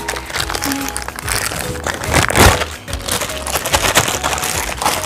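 Thin clear plastic bag crinkling and crackling as it is handled and pulled off a plastic toy pot, loudest about halfway through, over soft background music.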